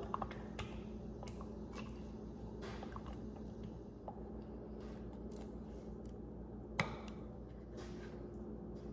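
Faint soft ticks and squishes of drained canned beans dropping by hand into sauce in a glass baking dish, with one sharper click about seven seconds in, over a steady low hum.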